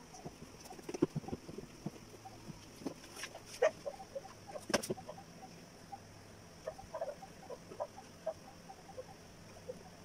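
Faint short squeaks, typical of newborn puppies, clustered near the end, with scattered knocks and rustles of the whelping Belgian Malinois shifting on cardboard over a plastic pallet floor.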